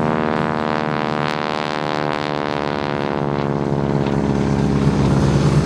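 Propeller aerobatic plane's engine running as it flies past, a steady drone whose pitch shifts slightly.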